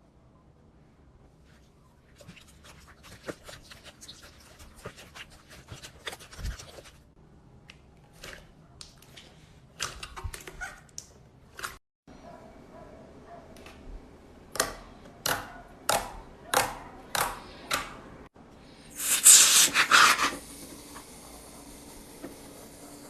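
Slime being squeezed and poked, with wet crackling and popping and a run of evenly spaced squishes. Near the end comes a short, louder burst of dense squelching.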